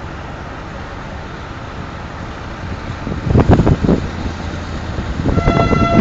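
MK45 narrow-gauge diesel locomotive pulling a train away: a steady low engine rumble, louder rough surges about three seconds in as the engine takes up power, then a held horn blast starting near the end.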